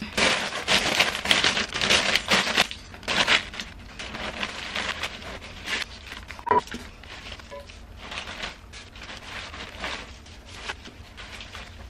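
Clear cellophane bouquet wrapping crinkling as it is handled and pulled off the flowers, loudest in the first few seconds, then softer intermittent crinkles. A single sharp click about six and a half seconds in.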